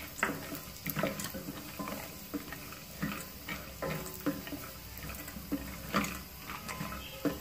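Wooden spatula stirring chopped nuts roasting in ghee in a stainless steel pot: irregular scrapes and light knocks against the steel, about one or two a second, with the nuts rattling.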